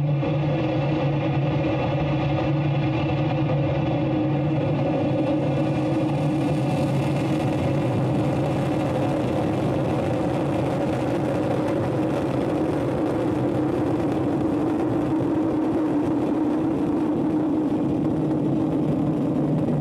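Atlas V rocket's RD-180 first-stage engine firing at full thrust through liftoff and ascent: a loud, steady rumble with a hiss that builds over the first several seconds.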